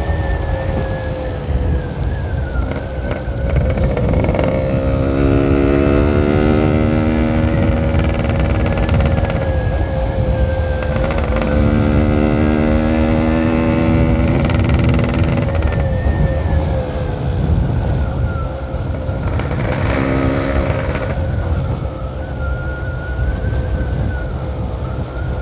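Yamaha RX-King's two-stroke single-cylinder engine running while being ridden, its pitch drifting up and down with the throttle, over a constant low wind rumble.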